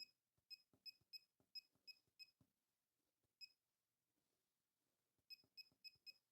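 Laser projection keyboard giving a faint short high beep with each keystroke as fingers tap on the tabletop: a quick run of about eight beeps, a pause of nearly two seconds, then another run of four or five.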